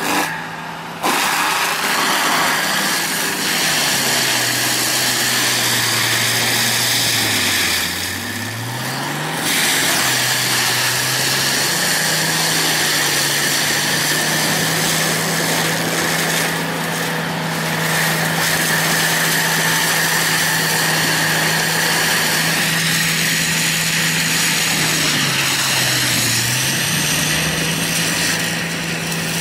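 Tracked forestry mulcher running hard, its engine holding a steady high note while the front cutter head grinds brush and stumps. Three times the engine note sags as the cutter bites into wood under load, then climbs back, the longest dip lasting several seconds.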